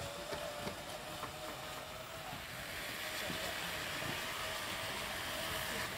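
Steady hum of a distant machine, with a hiss that swells from about halfway.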